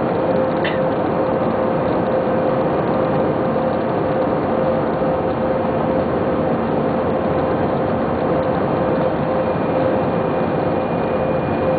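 Airbus A319 jet engines heard from inside the cabin over the wing during the takeoff roll: a loud, steady noise with a held tone running through it.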